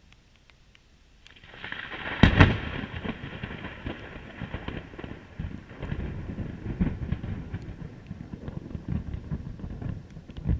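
Thunder: a sharp, loud crack about two seconds in, followed by a long rolling rumble broken by many smaller crackles.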